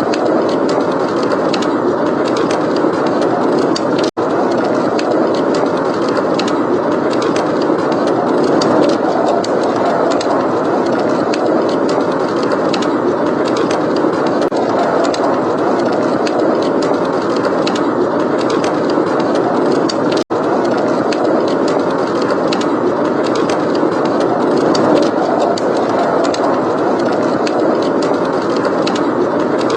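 Steady blizzard wind with a wood fire crackling throughout, its small sharp pops and ticks scattered over the wind. The sound cuts out for a split second twice, near the start and in the middle.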